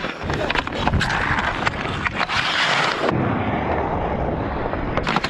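Ice hockey skates scraping and carving across rough outdoor ice, with many sharp clacks of sticks on the puck and on each other.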